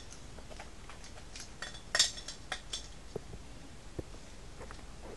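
Light metallic clicks and clinks of a copper pipe and a small rotary tubing cutter being handled, with the loudest clink about two seconds in.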